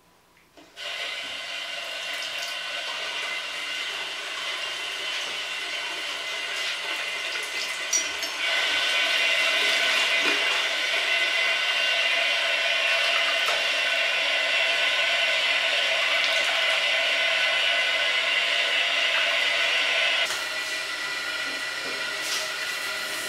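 Tap water running into a bathroom washbasin, a steady rush that grows louder about a third of the way in and drops back to a lower level near the end.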